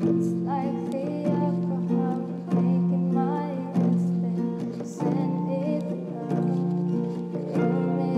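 Multitrack music played back from a GarageBand arrangement: plucked acoustic guitar chords, with a new chord struck about every one and a quarter seconds.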